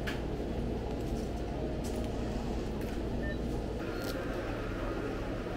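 Steady background hum inside a convenience store with a few faint clicks, giving way about four seconds in to the steady noise of a street outside.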